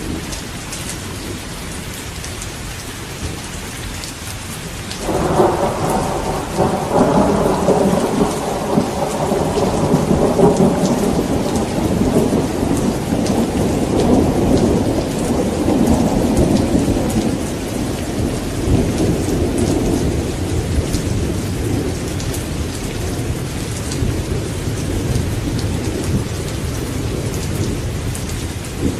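Steady rain, with a thunderclap breaking about five seconds in and rolling on as a long rumble that slowly dies away over the next fifteen seconds.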